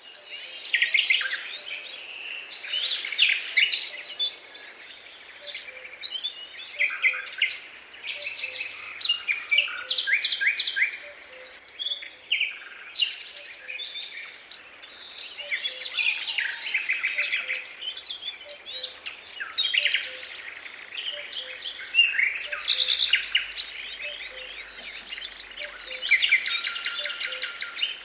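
Several songbirds singing, many overlapping chirps and quick trills.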